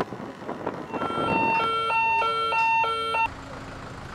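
Electronic two-tone alarm alternating between a high and a low tone about twice a second, starting about a second in and cutting off suddenly after about two seconds.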